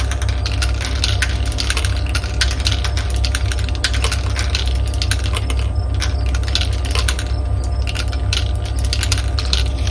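Marbles rolling and clattering along a plastic marble run track, a dense stream of rapid clicks and clacks, over a steady low hum.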